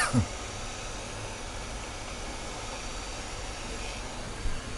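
Hot air rework station blowing a steady airflow hiss over a low hum. A brief cough comes right at the start, and a short knock near the end.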